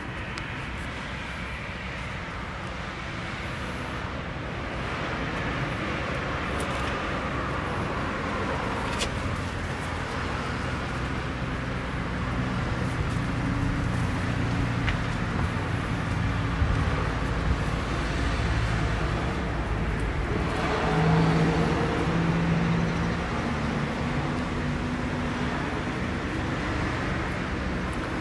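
Road traffic in the background: a steady rumble of passing vehicles that grows louder through the middle, with a low engine hum about three-quarters of the way through.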